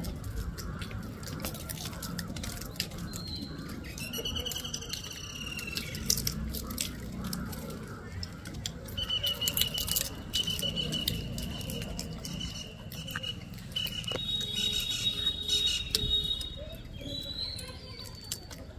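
Outdoor ambience with scattered light clicks and taps and high whistled calls. An arching call comes about four seconds in, and a long steady high whistle with small breaks runs from about nine to fourteen seconds, followed by a few more high tones.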